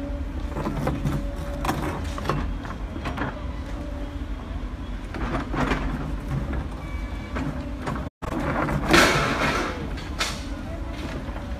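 A hydraulic excavator's diesel engine runs steadily while its bucket works at the masonry of an old railway overbridge being demolished. Scattered knocks and scrapes are heard, and a louder burst of noise comes about nine seconds in.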